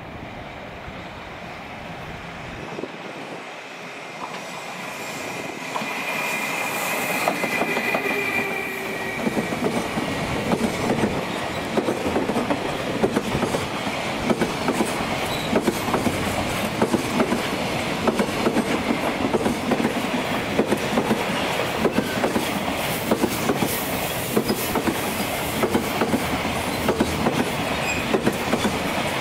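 Container freight train hauled by an EF210 electric locomotive approaching and then running past close by. The sound grows louder over the first several seconds, then the wagons roll by with a steady clickety-clack of wheels over the rail joints. A high whine is heard briefly from about six to nine seconds in.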